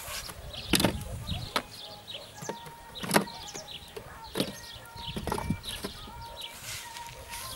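Wooden beehive frames being lowered into a wooden swarm-trap box, knocking wood on wood about five times as they are set in place.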